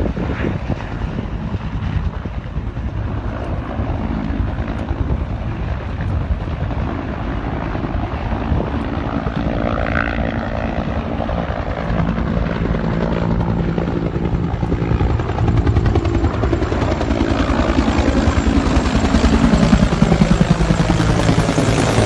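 Firefighting helicopter with a two-bladed main rotor flying in, the rotor beating rapidly and steadily over the engine's drone. It grows louder as the helicopter comes directly overhead near the end.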